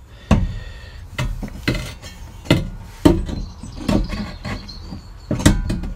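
Cast-iron fire grate knocking and clinking against the firebox of a small multi-fuel stove as it is worked into place, a string of about nine irregular knocks, some with a short metallic ring.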